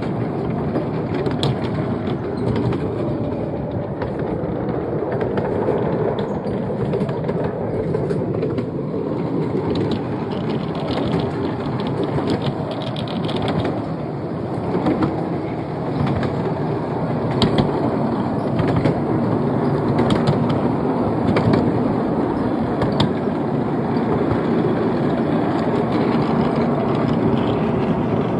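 Miniature railway carriages rolling along the track, heard from on board: a steady rumble of wheels on rail with occasional sharp clicks, as at rail joints.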